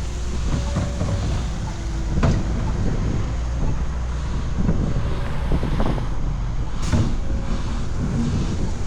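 City street ambience: a steady low rumble of traffic, with scattered short knocks and clatters.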